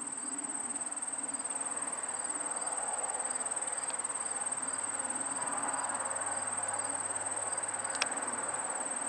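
Insects trilling: one continuous high-pitched trill, with a fainter pulse repeating about twice a second beneath it. A single sharp click near the end.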